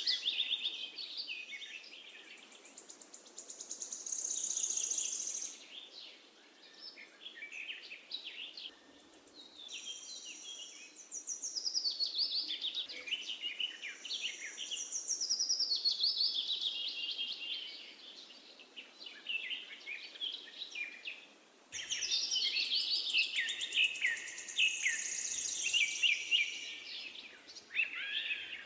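Songbirds chirping and trilling in overlapping phrases of quick, falling whistles. The song thins out a few seconds in and starts again abruptly about two-thirds of the way through.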